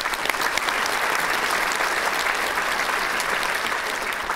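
Applause: a crowd of many hands clapping steadily.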